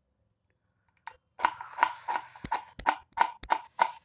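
Kitchen knife slicing through a peeled beetroot onto a wooden cutting board. Starting about a second in, it makes an even run of sharp chops, about three a second.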